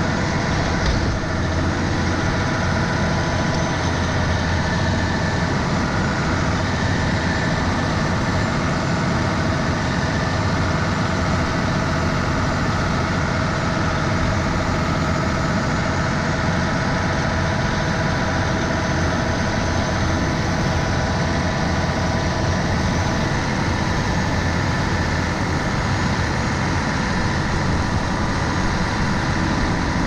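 John Deere 9330 four-wheel-drive tractor's six-cylinder diesel engine running steadily while pushing corn silage across the pile with a front push blade, heard close up from a camera mounted on the tractor.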